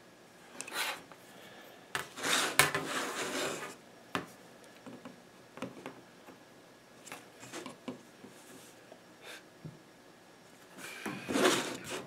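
Pencil scratching lines onto a wooden board along a metal ruler, in a few separate strokes, the longest about two seconds in, with small clicks and scrapes as the metal rule is set down and shifted on the board and bench.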